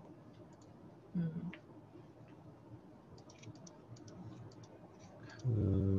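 Faint, scattered clicking of a computer keyboard, thickest in the middle. There is a brief vocal hum about a second in, and a man's long, steady 'mmm' hum starts near the end.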